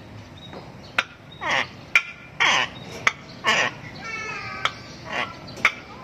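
Palm cockatoo mimicking a tokay gecko's 'tok-keh' call: a sharp click, then a harsh call about half a second later, repeated about once a second four times. A short warbling call comes in the middle.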